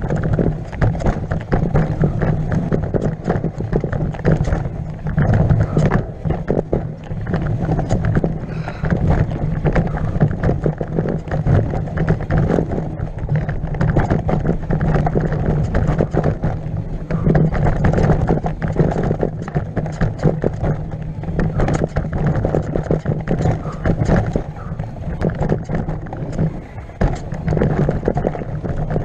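Mountain bike descending a rough dirt trail at speed: a steady low rumble of knobbly tyres over the ground, with constant rapid rattling and knocking as the bike hits roots and stones.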